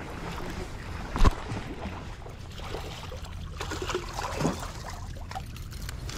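Water splashing and sloshing as a hooked striped bass thrashes at the surface beside a kayak and is brought in, with one sharp knock about a second in.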